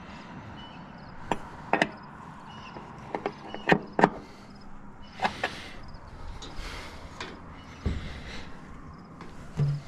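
Sharp metal clanks and taps from a wrench and the sheet-metal head cover of a grain elevator being worked on: several separate knocks, and a duller thump a little before the end.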